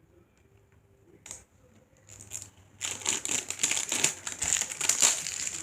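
Plastic toy packaging crinkling as it is handled and opened: a few scattered crackles, then loud, continuous crinkling from about three seconds in.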